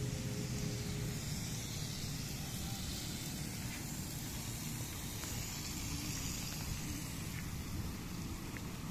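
Steady outdoor background noise: a low rumble with a hiss above it and a few faint ticks.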